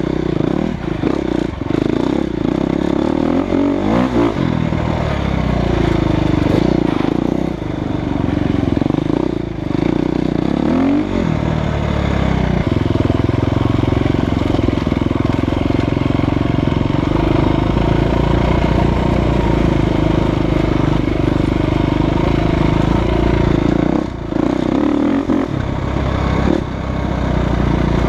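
Husqvarna FE350's 350 cc single-cylinder four-stroke engine pulling the bike along a dirt trail, its revs rising and falling with the throttle and gear changes several times in the first dozen seconds. It then runs at a steady pitch for about ten seconds, eases off briefly, and picks up again near the end.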